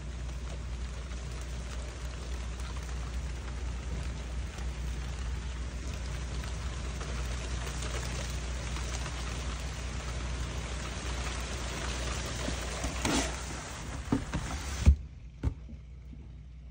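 Rain falling steadily in a thunderstorm, an even hiss over a steady low hum. Near the end come a few knocks and one loud thump, and the rain sound suddenly drops away to a muffled quiet.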